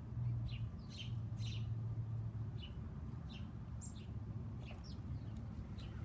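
Small songbirds chirping: about a dozen short, high, down-slurred chirps scattered irregularly, over a steady low hum.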